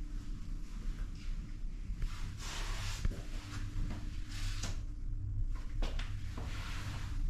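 Room tone with a steady low hum, broken by a string of short, soft scuffs and knocks of a person moving through the rooms with a handheld camera.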